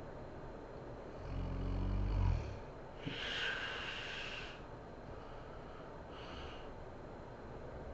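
A sleeping woman snoring: one low snore on the in-breath about a second in, then a breathy exhale, and a softer breath a few seconds later.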